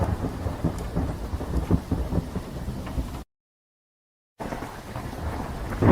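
Steady rain with low rumbling thunder. The sound cuts to complete silence for about a second just past the middle, then the rain resumes and a louder thunder rumble begins near the end.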